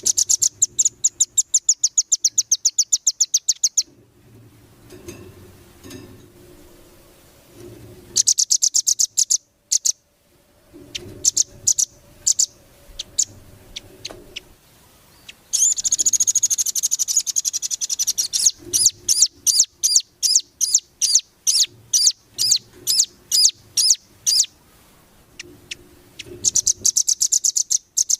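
Velvet-fronted nuthatch (rambatan) calling in fast, high trills of sharp repeated notes, several bursts of one to eight seconds with short pauses between, the longest starting around the middle.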